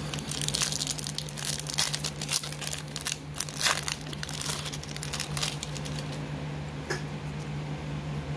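Foil booster-pack wrapper crinkling in a rapid flurry as it is handled and opened, tailing off after about five seconds with one last crinkle near the end, over a steady low hum.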